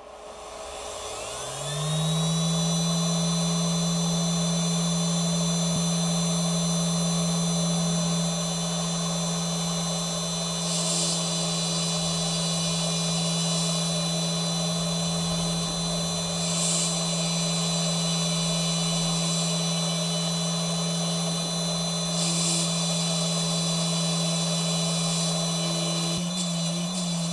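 400-watt, 48-volt CNC spindle spinning up over about two seconds to a steady high whine while it drills a copper-clad circuit board with a 0.7 mm bit. Three short bursts of hiss come in partway through, and near the end the whine starts to waver.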